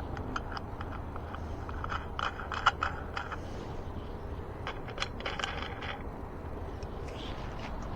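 Small metal parts being handled: scattered light clinks and a scrape, bunched about two to three seconds in and again about five seconds in, over a steady low rumble.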